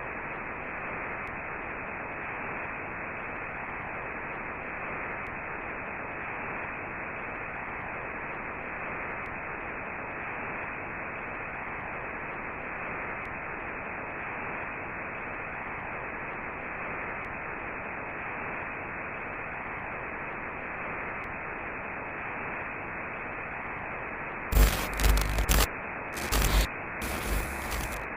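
Steady hiss of broadcast radio static, muffled, with nothing above the middle of the treble. Near the end three loud bursts of distorted noise break through, one after another, and the sound cuts off suddenly.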